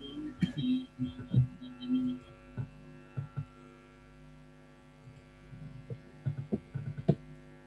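Steady electrical mains hum with a buzzy stack of overtones, carried over an online video call, with scattered faint clicks and knocks at irregular intervals.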